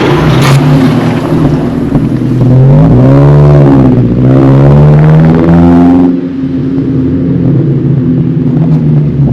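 A motor vehicle's engine passing close by, its pitch rising and falling about halfway through at its loudest, then settling to a lower steady hum.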